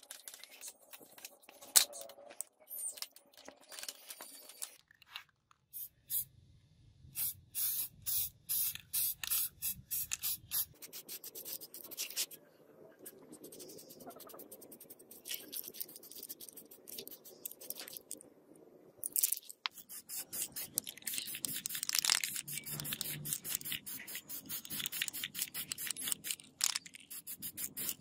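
Aerosol spray-paint can: a run of regular rattling strokes, then hissing in many short bursts as paint is sprayed on, densest in the last third.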